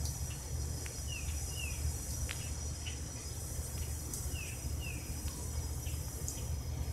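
Outdoor ambience: a steady low rumble with a thin high hiss, and short falling bird chirps that come in two pairs, about one second and four and a half seconds in.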